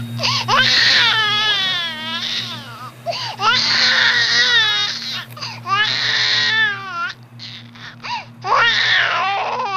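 High-pitched, wavering crying in about five drawn-out bouts with short breaks between them, like an infant crying.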